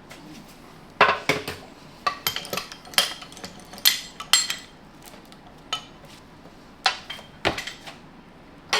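Irregular metallic clinks and clanks of tools and transmission parts being handled and set down, a dozen or so separate sharp knocks with short gaps between them.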